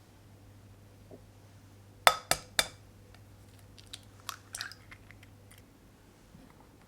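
Three sharp clinks of hard objects being set down or knocked together, each ringing briefly, about two seconds in, followed by a few softer handling clicks and rustles.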